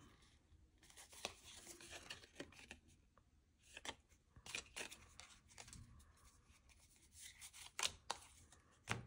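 Faint handling of Pokémon booster packs and trading cards: scattered light clicks and brief rustles of foil wrappers and card stock, a little louder a few times near the middle and end.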